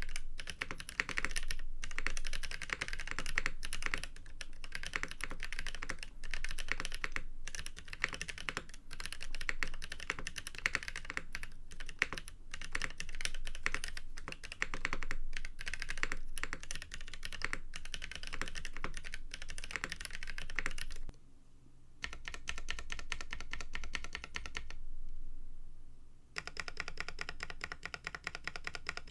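KBD8x MKII mechanical keyboard with Boba U4T tactile switches being typed on: a dense, continuous patter of 'thocc' keystrokes. About 21 seconds in it breaks off briefly, then single keys are struck over and over at an even pace in two runs, with a short pause between them.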